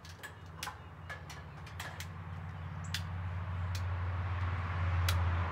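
Oil crackling and spitting in a frying pan on a gas grill's side burner, with irregular sharp pops and a sizzling hiss that grows louder toward the end. A low steady hum runs underneath.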